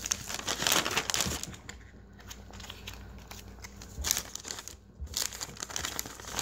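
Plastic heater bag of a self-heating meal kit crinkling and rustling as it is flattened and opened by hand, busiest in the first second or so, with two soft knocks on the table near the middle.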